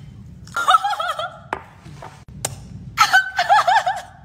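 A woman giggling in two short, high-pitched bursts, with a couple of sharp clicks between them.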